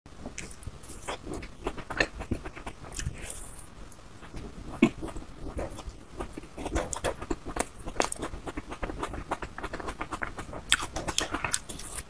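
Close-miked biting and chewing of a frozen ice cream bar with a pink coated shell: dense, irregular crackles and crunches throughout.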